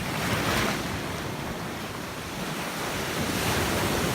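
Ocean surf breaking on the beach in a steady wash, swelling briefly near the start, with wind buffeting the microphone.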